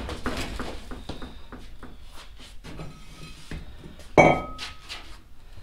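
Scattered metallic clinks and knocks, with one loud clank about four seconds in that rings briefly.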